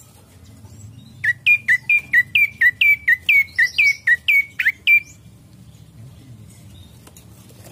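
Prenjak coki giving a rapid run of about fifteen sharp, identical chirps, about four a second. It starts about a second in and stops about five seconds in.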